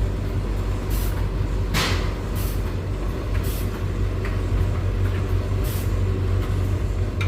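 Beko WS832425s washing machine starting its cotton wash cycle: a steady low hum with several short, irregular hissing swishes.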